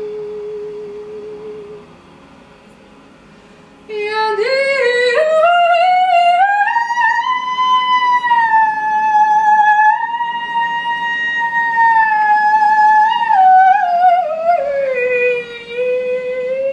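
A single long wailing note, sung or played with a voice-like wobble. A note fades out, then after a short lull a new one enters about four seconds in, slides upward over a couple of seconds, holds high and steady, and slides back down near the end.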